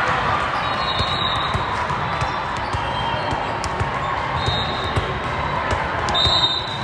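Busy indoor volleyball hall: balls thudding off hands and the floor at irregular moments, with short sneaker squeaks about a second in, past the middle and near the end, over murmuring crowd chatter.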